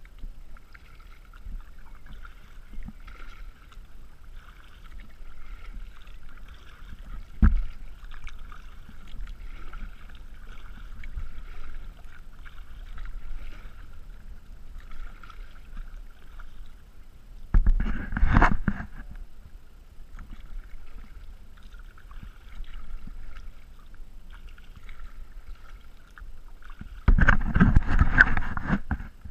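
Kayak moving through shallow water: a faint steady trickle of water along the hull, a single sharp knock about seven seconds in, and louder rushing bursts of water and wind noise around eighteen seconds and again near the end.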